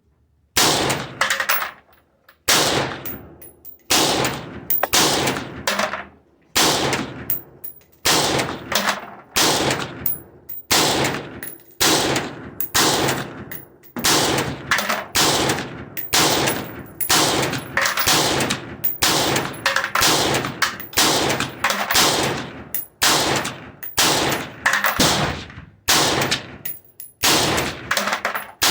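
AR-15 rifle in 5.56 firing rapid semi-automatic shots, about two a second, each crack followed by a short ringing tail, in an unbroken string starting about half a second in.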